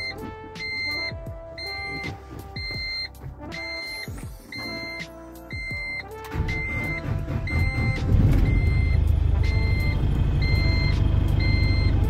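Volkswagen truck's dashboard warning buzzer beeping steadily about twice a second. About six seconds in the diesel engine is started, and from about eight seconds it runs louder and steadily at idle, with the beeping going on over it.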